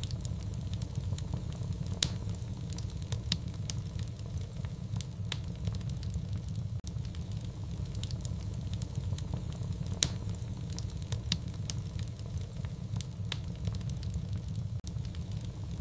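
Fireplace fire crackling: irregular sharp pops and snaps over a steady low rumble, with two louder pops about two seconds in and about ten seconds in.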